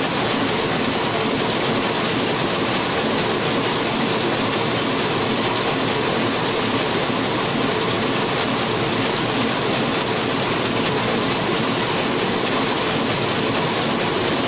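Heidelberg sheetfed offset printing press running at speed: a steady, even mechanical noise from its cylinders, rollers and sheet feed.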